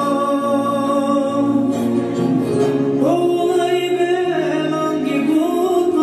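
Recorded song playing: a Greek song sung in Romani, with long held sung notes over musical backing.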